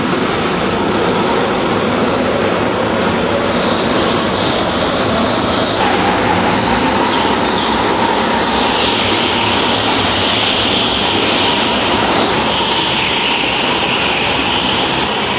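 Go-kart engines running as several karts race past on an indoor track, a steady dense engine noise. A higher whine comes in about halfway through.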